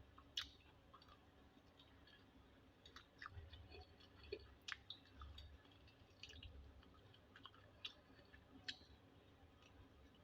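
Faint eating sounds: quiet chewing with scattered soft mouth clicks, several a little louder than the rest.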